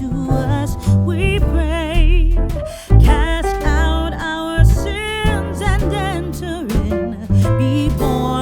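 A song with a singing voice over guitar and a bass line with a beat.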